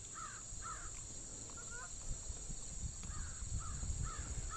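Canada geese honking as they come in: a series of short calls about two a second, broken by a pause of a second or two partway through.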